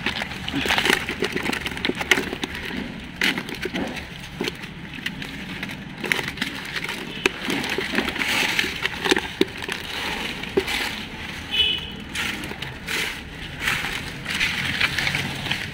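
Hands rummaging through wet dead leaves and mud, the leaves rustling and crackling in a dense, irregular run of small crunches.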